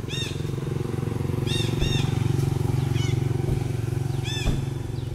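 A motor engine running steadily with a low drone, and five short, high chirps over it, each a quick arching note.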